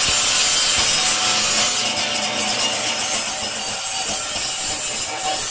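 An angle grinder running steadily against sheet metal, grinding a riveted patch on a door skin and its flattened rivets smooth.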